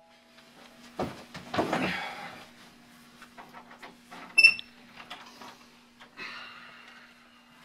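Thumps and rustling from someone moving about a small room about a second in. Then a laptop's short, high notification ping, the loudest sound, a little past the middle. Near the end a door is opened. A faint steady hum runs underneath.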